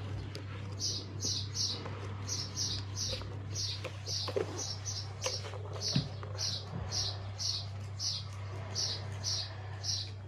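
A small bird chirping: a long run of short high chirps, about two or three a second and often in groups of three, over a steady low hum.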